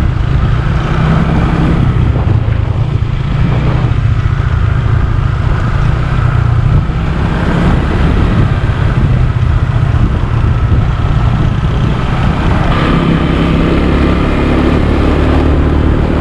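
Motor scooter engine running steadily while being ridden, with wind noise on the microphone.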